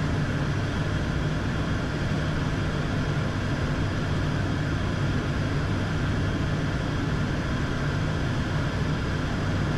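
Steady engine and airflow noise inside an airliner's cockpit on final approach, with a constant low hum under it.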